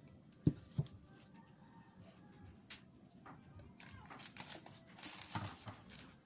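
Two dull thumps about half a second in, then the faint crinkle and rustle of a plastic bag of flour being handled, with scattered light clicks.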